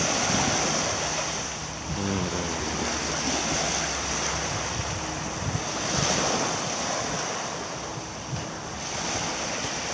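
Small waves washing up on a sandy shore, the surf swelling and easing, with wind buffeting the microphone.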